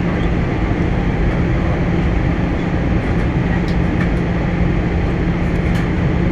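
Steady cabin noise inside an airliner on its descent: the jet engines and rushing airflow as an even roar, with a steady low drone underneath.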